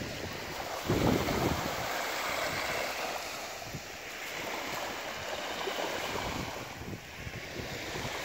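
Small sea waves washing onto a sandy beach under a steady wind, with wind buffeting the microphone, hardest about a second in.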